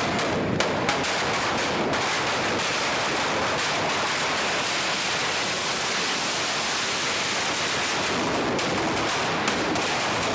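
Firecrackers packed inside a burning Ravan effigy going off in a continuous rapid barrage of bangs and crackles, with a few sharper, louder bangs in the first two seconds and again about nine seconds in.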